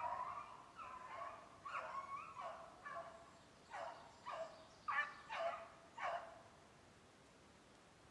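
Beagle baying on the track of a snowshoe hare: drawn-out bawls at first, then shorter chop barks that stop about six seconds in.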